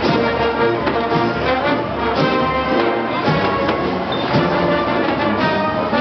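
Brass marching band playing a tune in the street, with drum beats.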